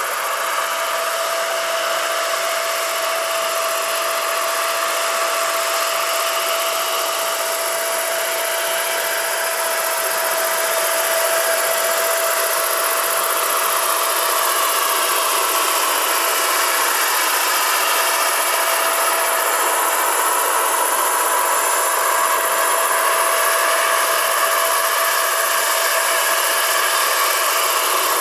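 Turbine engine of a large radio-controlled Boeing Vertol CH-46 scale model helicopter whining steadily, with the noise of its two tandem rotors. It grows a little louder partway through, as the helicopter comes in close to hover low.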